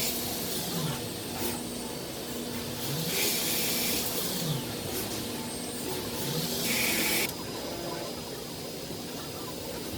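Machine tool running, its motor whine gliding down and back up in pitch several times. Three bursts of hissing spray come about three seconds apart, the last cutting off sharply near the three-quarter mark.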